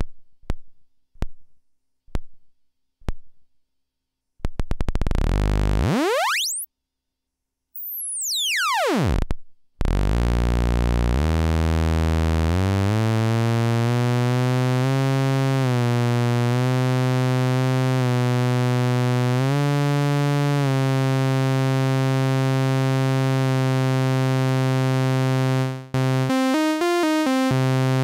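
Animodule Lil Monster analog VCO swept through its wide tuning range. It starts at LFO rate as single clicks that come further and further apart. It then turns into a tone that glides up to a very high pitch and back down, and settles into a buzzy sawtooth drone that climbs in steps from a low pitch, ending in a fast warble between pitches.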